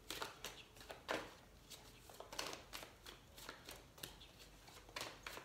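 A deck of oracle cards being shuffled and handled by hand: faint, irregular soft flicks and rustles of card stock, several a second.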